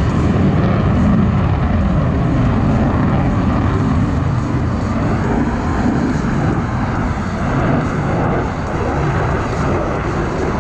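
Jet noise from a General Dynamics F-16 Fighting Falcon in flight: a loud, steady low rumble that swells and eases slightly.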